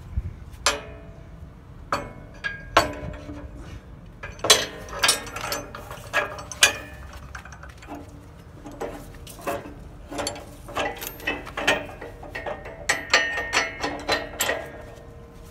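Steel turnbuckle hardware clinking and clanking against the hitch receiver and lift platform as it is fitted and worked by hand: a string of irregular sharp metallic clinks, each ringing briefly.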